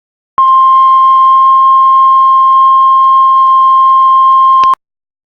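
Heart monitor flatline: one continuous beep at about 1 kHz, starting abruptly, held for about four seconds and cutting off suddenly. The unbroken tone is the monitor's signal that no heartbeat is detected.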